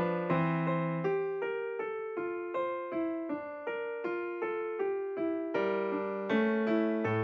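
Background piano music: a gentle melody of single notes at about three a second, with sustained low notes beneath.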